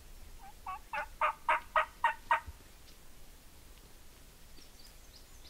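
Wild turkey calling: a series of about eight quick notes, roughly four a second, that build in loudness over about two seconds.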